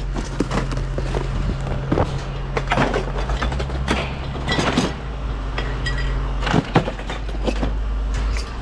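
Scattered metallic clinks and knocks, such as scrap metal being handled, over a steady low hum.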